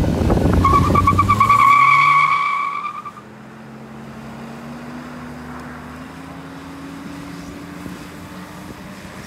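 Tuned Honda Civic 1.5 turbo four-cylinder with a CVT, pulling hard at full throttle at the end of a 0–100 km/h acceleration run, with a high wavering whistle over it. About three seconds in the throttle comes off and the sound drops to a quieter steady engine hum, whose pitch creeps slowly upward.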